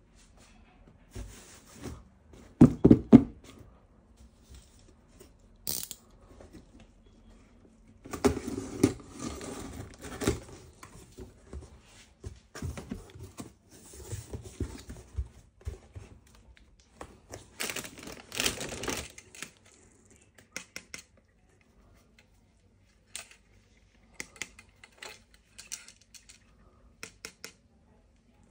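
Toy set packaging being handled and torn open: irregular rustling, crinkling and tearing with scattered clicks and knocks of plastic. The loudest knocks come about three seconds in, with longer stretches of rustling and tearing later.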